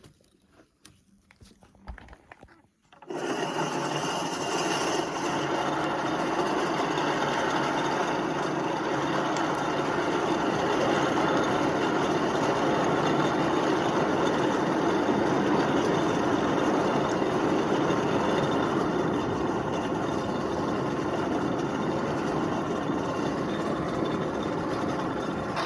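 Forge blower starting suddenly about three seconds in and running steadily, a loud even rush of air and machine noise, blowing air into the coal fire.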